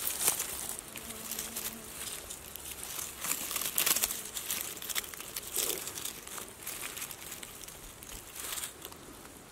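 Dry leaves, twigs and grass rustling and crackling as a hand pushes through the undergrowth beneath a fallen log, in several short, irregular spells.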